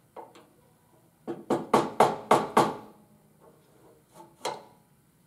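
Hammer taps on a horizontal bandsaw's loosened work table, nudging it square to the blade: a quick run of about six knocks with a short metallic ring, then two more near the end.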